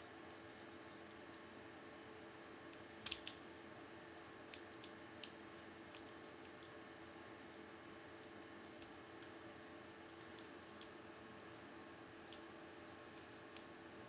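A lock pick and tension wrench working the pin tumblers of a Federal Lock 8102 padlock, a six-pin cylinder with anti-pick security pins: scattered small metallic clicks and ticks, the sharpest a quick few about three seconds in, over a faint steady hum.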